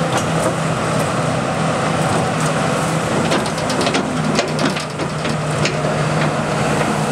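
Hitachi Zaxis 300 excavator's diesel engine running steadily under hydraulic load, with a scatter of sharp cracks and knocks in the middle seconds from the demolition shear working through debris.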